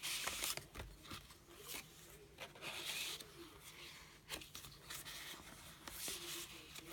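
Pages of a handmade paper scrapbook mini album rustling as they are turned and handled: three short papery swishes about three seconds apart, with small clicks between them.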